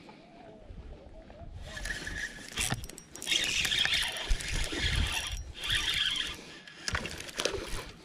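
A spinning reel cranked quickly while a fish is brought to the boat, a whirring hiss in two stretches beginning about three seconds in with a short break between them, over low thumps and handling noise.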